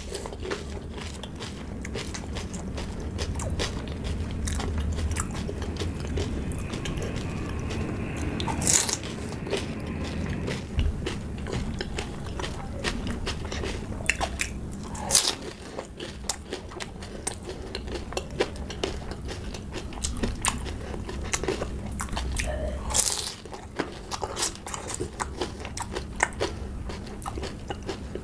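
Close-miked eating of pani puri: crisp hollow fried puri shells filled with spiced water being bitten and chewed, a steady run of crunching with three louder crunches spread through.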